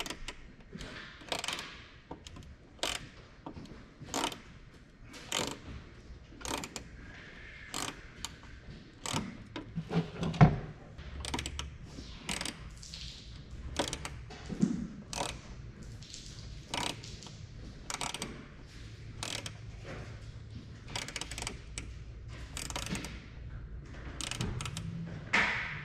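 Hand tools clicking at irregular intervals, roughly once a second, while the screws of a license-plate bracket are driven into the plastic under a front bumper, with one louder knock about ten seconds in.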